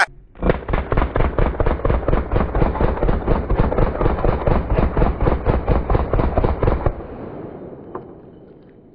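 A long full-auto burst of gunfire: rapid, evenly spaced shots for about six seconds that stop suddenly, followed by a fading rumble. It sounds dull and muffled.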